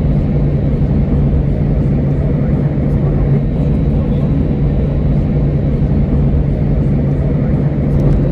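Steady cabin noise of an Airbus A320 on the ground: a constant low engine hum with airflow and rolling rumble as the jet taxis at low thrust.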